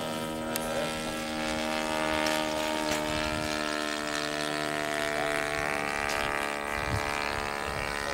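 Radio-controlled model warbird flying overhead, its motor and propeller running at a steady pitch.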